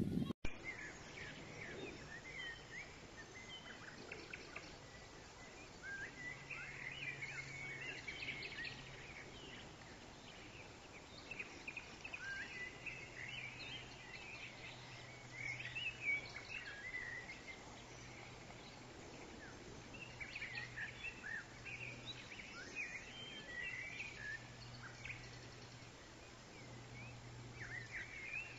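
Small songbirds chirping and calling in quick short notes over a steady outdoor hiss, with a faint low hum joining about six seconds in.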